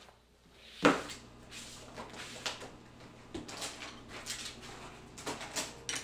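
Rummaging while searching for a key: a sharp knock just under a second in, then irregular shuffling, rustling and light knocks of things being moved about.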